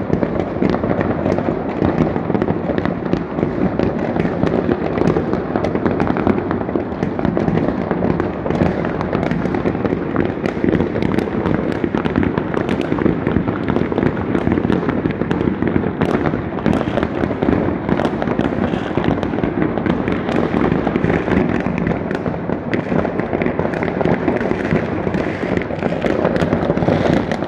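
A mass of fireworks rockets and firecrackers going off all over town at once: a continuous din of overlapping bangs and crackles with no let-up.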